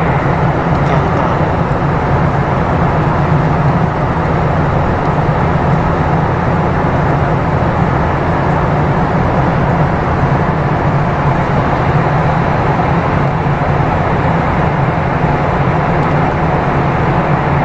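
Steady cabin noise of a jet airliner: an even rush of engine and airflow noise with a low drone underneath, unchanging throughout.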